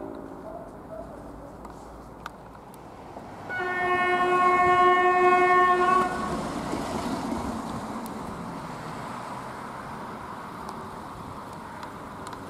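ET22 electric freight locomotive's horn sounding one steady blast of about two and a half seconds as the train approaches. After it comes the low steady rumble of the oncoming locomotive and its coal wagons.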